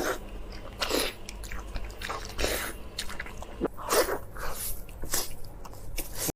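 Close-miked eating: a person biting into and chewing food, with short crisp bites and mouth sounds about once a second, the loudest about four seconds in.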